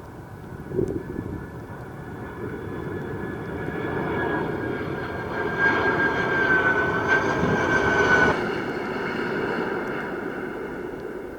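Boeing 767-300ER jet engines passing close on landing. The engine noise swells, carrying a steady high fan whine, then drops off sharply about eight seconds in and fades away. A short thump sounds about a second in.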